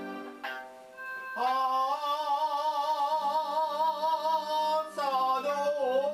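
A shamisen plucks a few notes, then from about a second in a voice holds one long sung note with a wide, even vibrato. Near the end the voice moves into a turning, ornamented phrase over the instrument.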